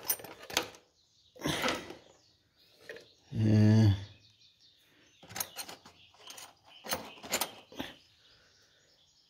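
Metal spanners clinking and tapping against the engine in short, irregular clicks. A brief low hum of a man's voice, the loudest sound, comes about a third of the way in.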